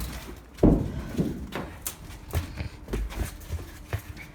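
Footsteps, about three a second, with one heavy thump under a second in.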